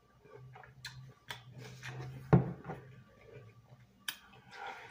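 Objects handled at a table: a few light clicks and one louder knock about halfway through, over a low steady hum in the first half.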